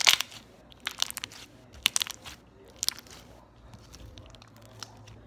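Tide-activated slime being kneaded and pulled by hand, giving sharp clicking, crackling pops roughly once a second. The pops thin out over the last couple of seconds.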